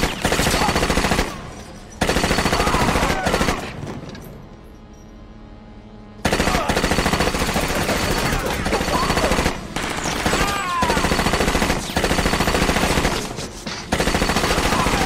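Automatic gunfire from a film gunfight, in long rapid bursts. There are two short bursts at the start, then a lull, and from about six seconds in near-continuous fire broken only by brief pauses.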